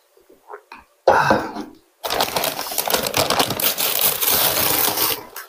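A short loud sound about a second in, then a stiff paper takeout bag being unfolded and pulled open: a dense crackling rustle of paper lasting about three seconds.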